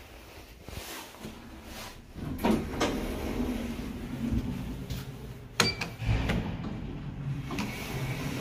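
1998 LG Industrial Systems elevator's car doors sliding open at a floor: a low rumble from the door mechanism starting about two seconds in, with a couple of clunks as they open and a sharp click about five and a half seconds in.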